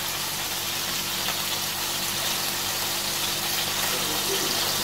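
Meat patties sizzling steadily in hot fat in a frying pan.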